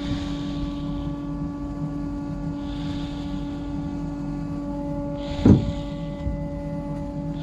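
A workshop machine motor running steadily with a constant, even-pitched hum. A single thump sounds about five and a half seconds in.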